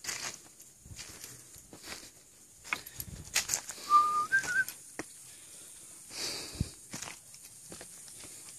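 A short two-note whistle about four seconds in: a steady note, then a slightly higher wavering one. Scattered footsteps and scuffs are heard around it.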